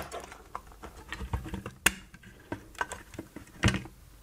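Sharp plastic clicks and taps as a cheap analog multimeter's plastic case is handled and its clear meter cover unclipped. The loudest clicks come about two seconds in and again near the end.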